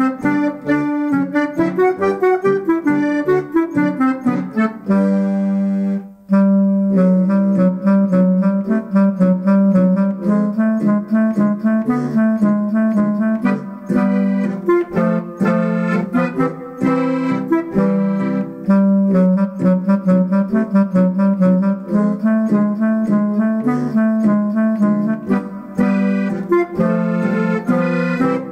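An accordion with a Limex MIDI system plays a Bavarian Ländler. The melody is in a deep clarinet voice, over left-hand helicon bass and guitar-sound chords. The music drops out briefly about six seconds in, then carries on.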